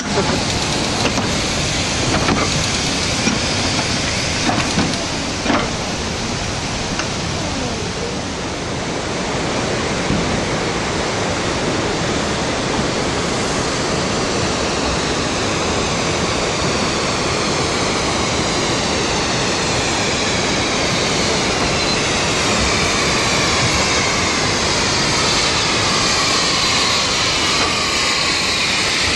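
Narrow-gauge steam tank locomotive Sir Haydn running with a loud, steady hiss of steam, drawing closer until it is alongside near the end.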